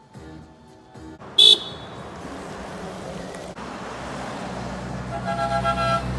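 Passing cars sounding their horns: a short, sharp toot about a second and a half in. Then a car comes nearer, its road noise growing, and gives a steady horn honk near the end.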